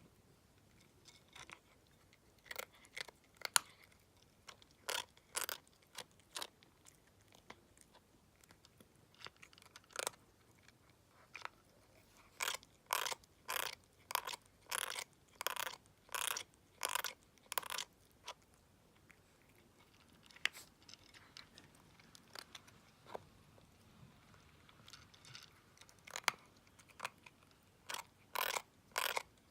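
Savannah kitten chewing, each bite a harsh crunching, tooth-grinding sound. The crunches come in runs of about two a second, with gaps between runs. The grinding comes from teething, with a milk tooth that the vet found cracked.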